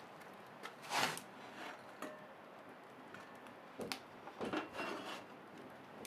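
Scattered small knocks and clinks of objects being handled, with a brief louder noisy sound about a second in and a cluster of small knocks around four to five seconds in.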